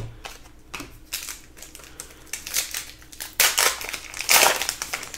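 Trading-card pack wrappers crinkling and cards being handled: a run of short dry rustles, the loudest two a little past the middle and near the end.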